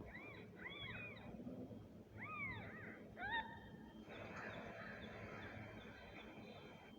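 Kitten mewing: a run of short, high mews that rise and fall, several in quick succession, with the last ones about three seconds in. After that comes a faint steady hiss with small, regular high chirps.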